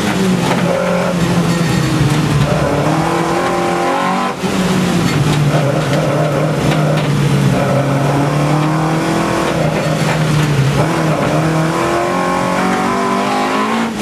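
Engine of a stripped-out slalom race car heard from inside the bare cabin, driven hard: revs rising and falling through the corners, with a brief lift off the throttle about four seconds in.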